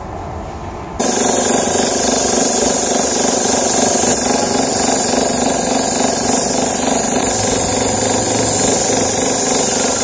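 A powered air tool is switched on about a second in and runs steadily, a loud even rush of air over the dashboard repair as the final colour coat is applied and blasted.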